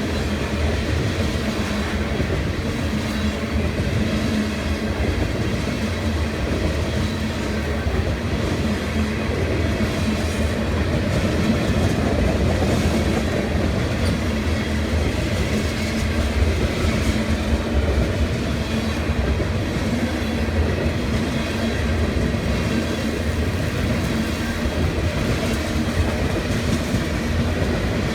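Loaded freight train of ethanol tank cars rolling past, with steady wheel-on-rail rumble and clatter.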